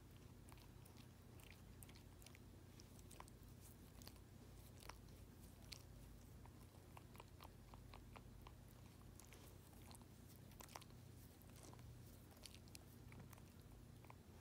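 Dog licking and nibbling at its own paw while grooming: faint, irregular wet smacks and small clicks of teeth.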